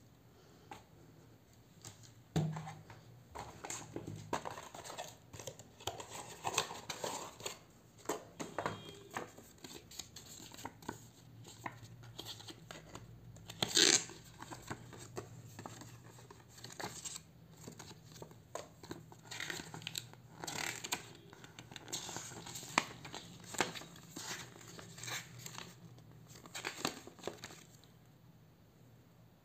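Paper instruction leaflets and a plastic packing bag being handled, rustling and crinkling in irregular short crackles, the loudest about halfway through.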